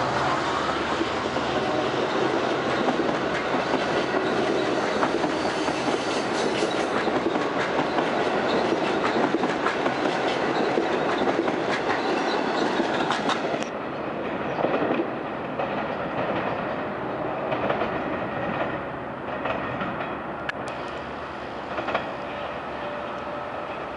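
Long Island Rail Road bilevel passenger coaches rolling past close by, the wheels clattering over the rail joints. A little over halfway through it cuts off abruptly to a quieter, more distant rumble from an approaching electric multiple-unit train, with a few sharp clicks.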